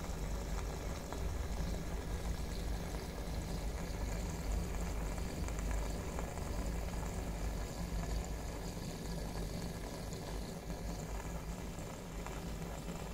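Aquarium filter and air bubbler running: a steady low motor hum under continuous bubbling water.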